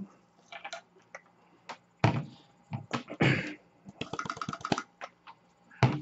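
Krups F203 blade coffee grinder being knocked and tapped, upturned, to empty ground coffee from its bowl: scattered taps and knocks, with a quick run of taps a little past the middle and a sharper knock near the end as it is set down on the table.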